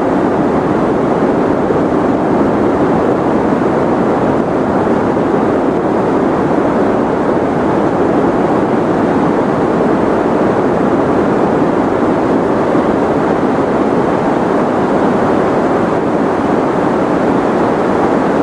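Steady, unchanging white noise for sleep, a loud even hiss weighted toward the low-mid range so it sounds more like a soft rushing than a bright hiss.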